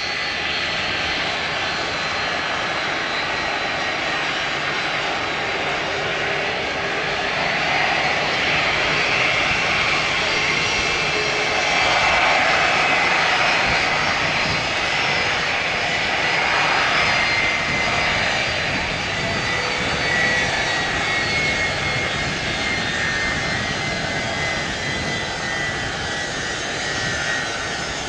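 Boeing C-32A (757-200) with two Pratt & Whitney PW2040 turbofans running at low taxi power as the jet lines up on the runway. A steady jet rumble carries high whining tones that drift slightly in pitch.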